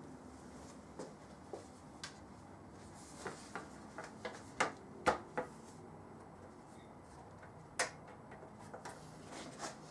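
Scattered light clicks and knocks at irregular intervals over a quiet background, the loudest about five seconds in.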